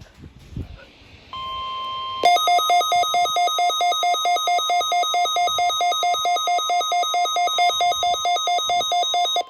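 NOAA Weather Radio 1050 Hz warning alarm tone sounding steadily as a weekly test. About a second after it starts, a weather radio receiver's alarm sets off a loud, rapid beeping that alternates between two pitches and stops near the end while the tone carries on.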